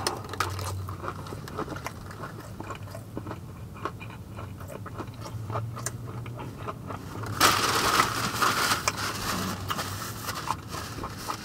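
A person biting into and chewing crispy fried chicken fillets, with small crunches and wet mouth sounds. About seven seconds in there is a louder rustling for about two seconds.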